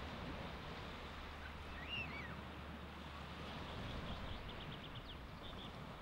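Baltic Sea surf washing steadily onto the beach, a continuous even rush. A short high call rises and falls about two seconds in, and a quick run of faint high ticks follows later.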